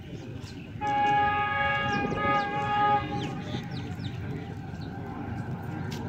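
Horn of a GE U40 diesel-electric locomotive on an approaching express train, sounding one steady multi-note chord for about two seconds, starting about a second in.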